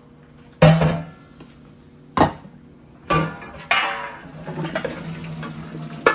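Metal cooking pot clanking and knocking several times, the first and loudest knock ringing on, as the water is poured off boiled potatoes. A stretch of pouring water runs for about two seconds in the second half.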